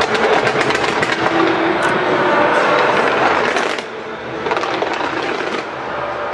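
Fireworks crackling and popping in a dense, continuous barrage, easing off a little about four seconds in.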